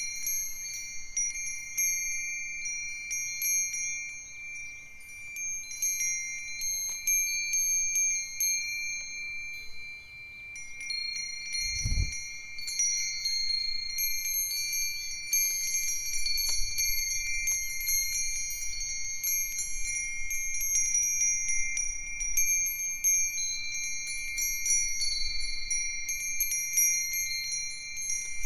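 A set of Japanese wind chimes, including a Myochin fire-chopstick chime and Nambu cast-iron bells, ringing together in the breeze with clear, sustained high tones and frequent strikes. The ringing thins out for a few seconds before picking up again. A single dull low thump comes about twelve seconds in.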